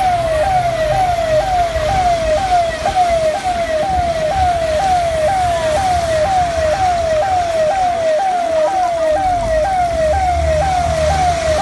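An electronic siren sounding a fast repeating cycle, its pitch falling and jumping back up about twice a second, over a low rumble.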